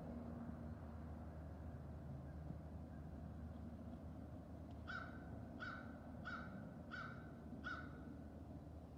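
A bird calls five times in an even series, about two-thirds of a second apart, starting about halfway through, over a faint steady low rumble.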